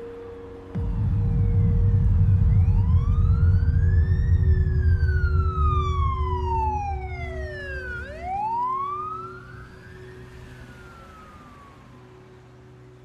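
A siren wailing in two slow rises and falls of pitch, over a deep rumble that comes in suddenly about a second in and dies away over several seconds, with a steady low hum underneath.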